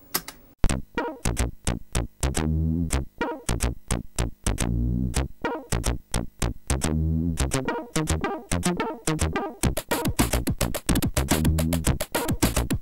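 Electronic music with a fast, steady beat and deep bass notes, cutting in abruptly about half a second in.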